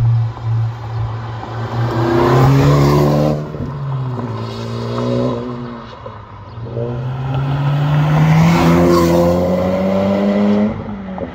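Honda Civic Type R FL5's turbocharged 2.0-litre four-cylinder through an MRT Street Race straight-through axle-back exhaust, accelerating hard away from the roadside. The exhaust note climbs through one gear, drops at a shift about three and a half seconds in, climbs again through the next gear and falls away near the end.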